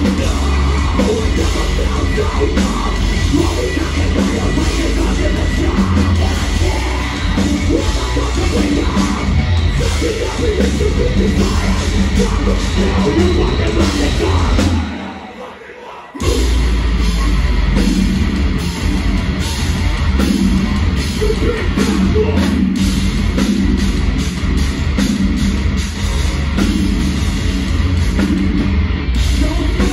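Metalcore band playing live, with heavy distorted guitars, a drum kit and vocals over the club PA. About fifteen seconds in, the band stops dead for about a second, then comes back in at full volume.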